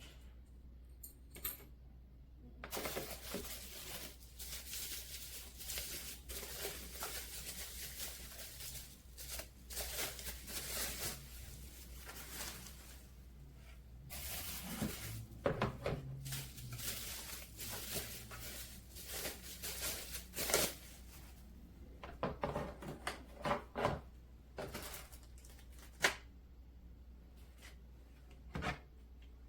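Handling noise: rustling and crinkling from about three seconds in, then scattered clicks, clinks and knocks of hard objects being moved about, over a steady low hum.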